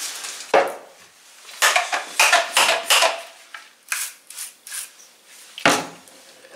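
Würth hand pump sprayer squirted in a string of short hissing bursts at the drill bit and workpiece, with a knock about half a second in and another near the end.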